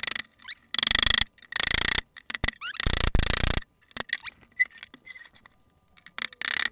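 Joints of an old IKEA wooden chair frame creaking and squeaking in three half-second bursts as the glued joints are forced apart, with a few sharp knocks in between.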